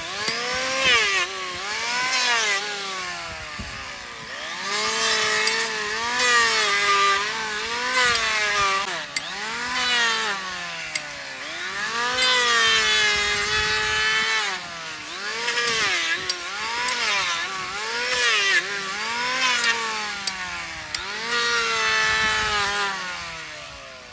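Handheld electric planer shaving the thick, overgrown sole horn of a mule's hoof: the motor's pitch drops each time the blade bites into the hoof and climbs back between passes, over and over. Near the end it winds down.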